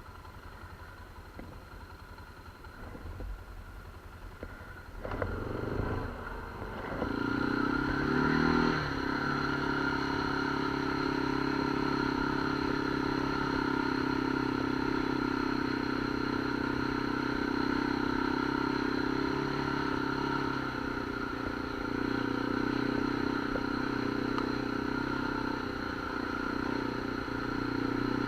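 Off-road vehicle engine coming up about five seconds in, rising in pitch briefly as it pulls away, then running at a steady speed.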